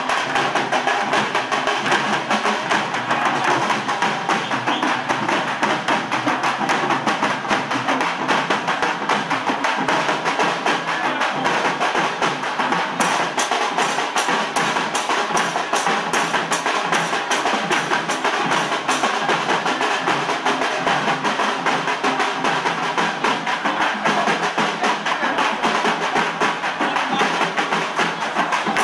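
Fast, sharp-sounding drumming in a rapid, steady beat, a dense wall of percussion that keeps going without a break.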